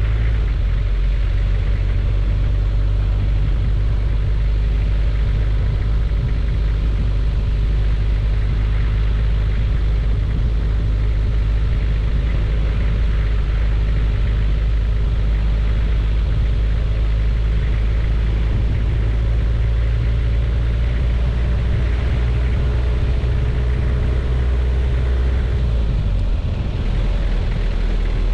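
Nissan King Cab pickup's 2.5-litre diesel engine pulling steadily at a cruise, a low drone mixed with tyre noise from the dirt road. The engine note shifts briefly near the end.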